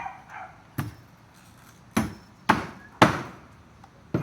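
Hammer blows on wood: five sharp, irregular strikes, each with a short ring after it.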